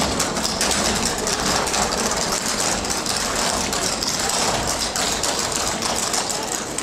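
Clogging taps from several dancers' shoes on a wooden stage floor: a fast, dense, continuous clatter of metal taps.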